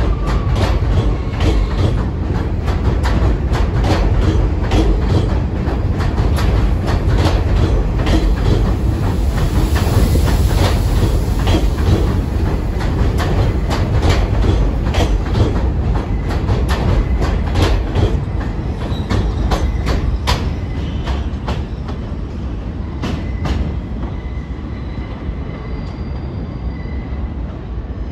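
New York City subway train running through the station, its wheels clacking sharply and rapidly over rail joints above a heavy rumble. The sound gets quieter over the last several seconds as the train moves away.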